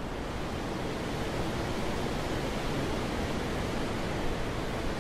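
Wind blowing steadily, an even rushing noise that swells a little over the first couple of seconds and then holds.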